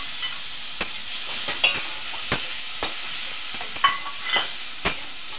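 Onion, garlic and ginger frying in hot oil in a metal kadhai, a steady sizzle. A spatula stirring the mix scrapes and knocks against the pan about eight times.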